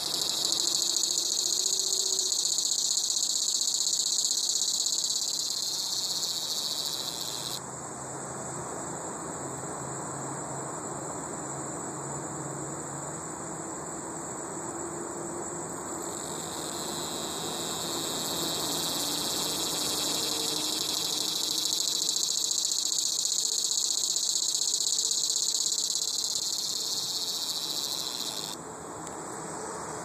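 Dog-day cicada buzzing in a loud, steady, high-pitched drone that breaks off after about seven seconds, starts up again about halfway through and stops near the end. A fainter, steady high tone carries on underneath throughout.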